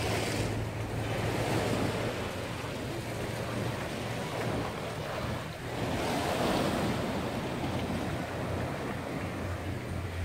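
Sea surf washing over a rocky shoreline, swelling louder about a second in and again around six seconds in, with wind buffeting the microphone.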